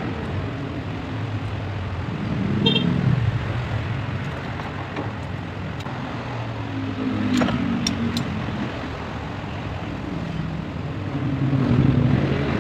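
Motor vehicle traffic going by, a low hum that swells and fades several times. About halfway through come a few light metallic clicks as the timing chain is handled on the sprockets.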